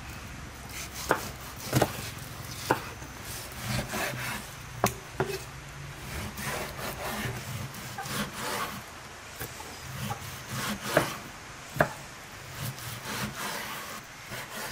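A large kitchen knife slicing and chopping raw beef on a wooden cutting board: scraping, sawing strokes of the blade through the meat, with irregular sharp knocks where the blade hits the board.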